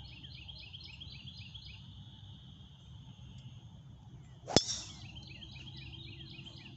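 Driver head striking a golf ball off the tee: one sharp, ringing crack about four and a half seconds in, a well-struck tee shot. Around it a bird repeats short chirping notes over a steady high buzz.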